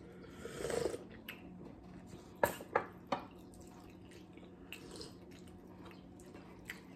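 Hot chocolate tea sipped noisily from a ceramic mug, then three sharp clicks of a mug and cutlery against the table and plates about two and a half to three seconds in.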